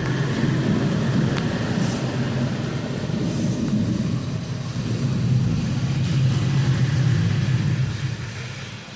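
A motor vehicle's engine running close by, a steady low drone over the hiss of moderate rain, fading about eight seconds in.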